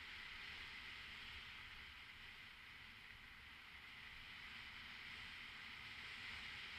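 Faint steady hiss of rushing air and tyre rolling noise from a mountain bike on a downhill descent, picked up by a helmet-mounted action camera, with a low rumble underneath; it grows a little louder near the end.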